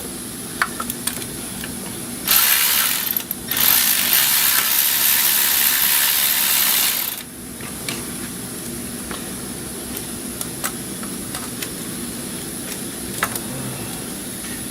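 Compressed air hissing from an air tool in two spells, a short one and then one of about three seconds, with a few light clicks of tools around them.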